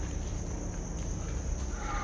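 Crickets chirping steadily in a high, even tone, over a low rumble.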